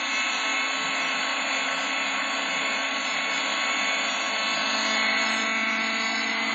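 SDX flybarless RC helicopter running steadily at constant speed: engine and rotor sound with an abnormal noise, which the owner traces to a cracked rotor.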